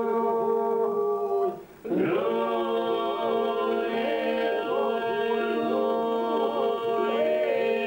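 Albanian iso-polyphonic folk song sung a cappella by a small group of men: a steady held drone (iso) under interweaving lead and answering melodic voices. All voices break off briefly about two seconds in, then the drone and melody come back in.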